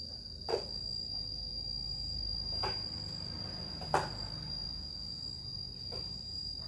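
Insects droning in one steady high tone, with four short sharp knocks over it, the loudest about four seconds in.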